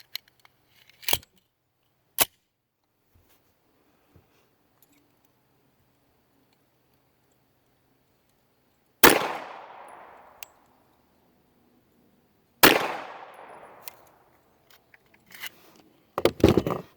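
Two pistol shots from a Rock Island 1911 chambered in 9mm, about three and a half seconds apart, each with a long echoing decay. A couple of sharp clicks come a few seconds before the first shot.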